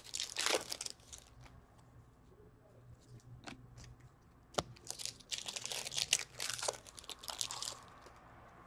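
Plastic wrappers of Upper Deck Series 1 hockey card packs being torn open and crinkled, in bursts near the start and again over the last few seconds. Two sharp clicks from handling the cards fall in the middle.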